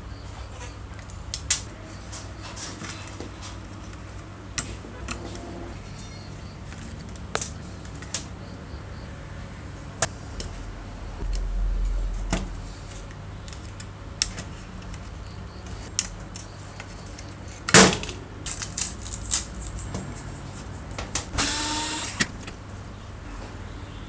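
Scattered clicks, taps and small rattles of a vintage rotary telephone's metal chassis, handset and wiring being handled as it is taken apart. A sharper click comes about 18 seconds in, and a short noisy rattle about 21 seconds in.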